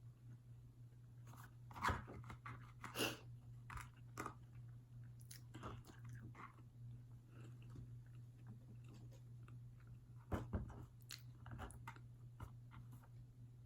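Close-up biting and chewing of a crunchy breaded fried chicken wing, in irregular crackles; the sharpest crunches come about two and three seconds in and again around ten seconds. A steady low hum runs underneath.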